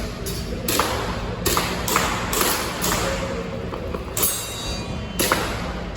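Airsoft gun fired in a quick string of about eight shots at uneven intervals, some with a short ringing ping after the shot, over steady background music.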